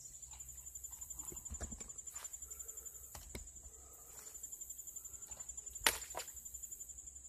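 Insects trilling steadily in a high, evenly pulsing chorus, with a few sharp clicks and knocks as a plastic bottle is handled; the loudest click comes about six seconds in.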